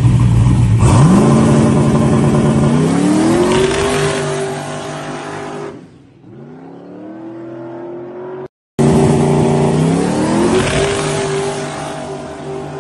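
Drag-racing Chevelle's engine held at a steady rev on the line, then pulling hard as the car launches about a second in, climbing in pitch in two steps and fading as it runs down the track. After hard cuts come two more runs: a fainter one, then a loud one that again climbs in pitch and fades with distance.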